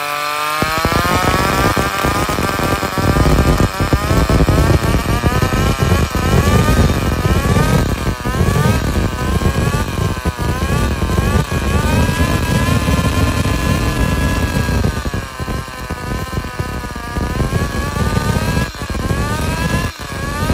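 Toyan miniature rotary engine catching about half a second in from the whine of its belt-driven electric starter, then running, its speed rising and falling repeatedly while the carburetor is being tuned. The running sags briefly twice near the end.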